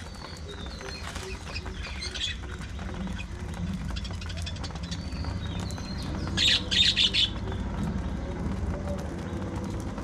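Budgerigars chirping, with a short burst of louder squawks about six and a half seconds in, over a steady low hum.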